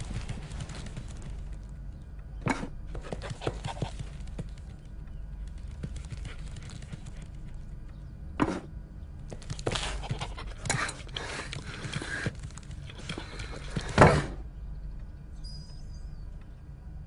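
A dog's food bowl knocking and clattering, a string of irregular knocks with scraping between them, the loudest knock about fourteen seconds in, after which the clatter stops.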